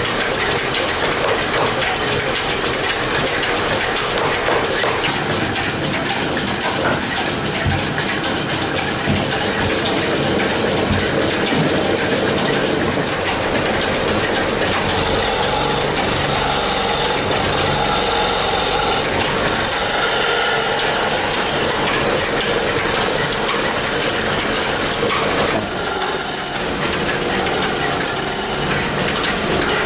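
A wood lathe spins a wooden spinning-top blank while a hand-held turning chisel cuts into it: a steady scraping rush of the tool on the turning wood. From about halfway, thin high ringing tones join the scraping.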